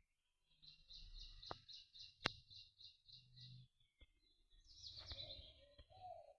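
Songbird singing: a high trill of about a dozen evenly repeated notes lasting about three seconds, then a shorter, faster trill near the end. A few sharp clicks break in, over a faint low rumble.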